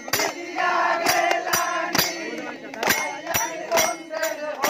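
A group of men singing and chanting together in a victory celebration, with sharp beats keeping time about twice a second.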